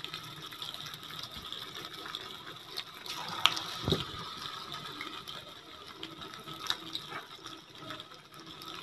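Pieces of yogurt-marinated chicken deep-frying in hot oil: a steady sizzle with scattered crackles, and one sharper pop about three and a half seconds in.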